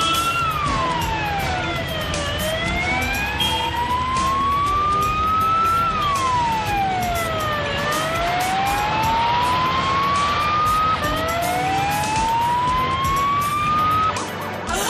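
Police motorcycle escort's siren wailing, sweeping slowly down and up in pitch every five seconds or so. It breaks off about eleven seconds in and starts a fresh rise from low. Traffic rumble runs underneath.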